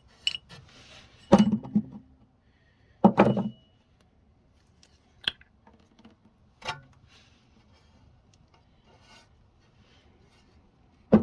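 Truck-mount pump parts being handled and opened: several sharp knocks and clunks, with fainter ticks, scraping and rubbing in between.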